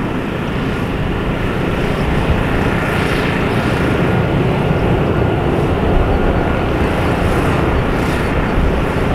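Boeing 737-800's CFM56-7B jet engines on final approach, a steady rushing drone.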